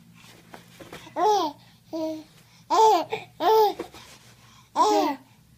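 Baby laughing in about five short, high-pitched bursts, each rising then falling in pitch.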